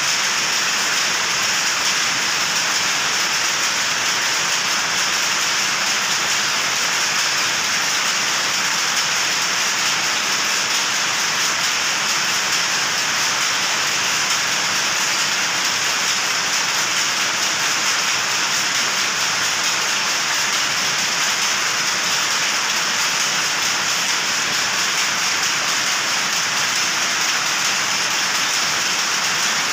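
Steady, dense clatter of many powerlooms running in a weaving shed, a fast, even rattle with no pauses.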